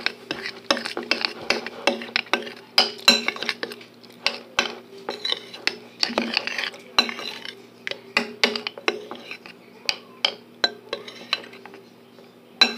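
A utensil stirring runny slime in a bowl, with many irregular clinks and scrapes against the bowl. A steady low hum runs underneath.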